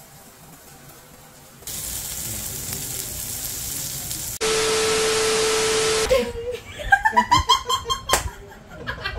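Pupusas sizzling on a hot flat griddle, starting about two seconds in, then a louder hiss with a steady tone for about two seconds. After that a man and a woman burst into hard laughter.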